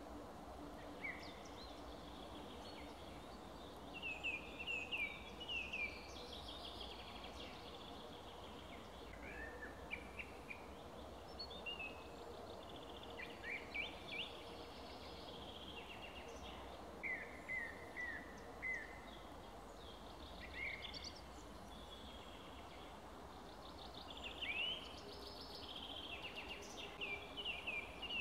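Songbirds singing: scattered short phrases of quick, falling chirps, coming in clusters every few seconds, over a faint steady background hiss.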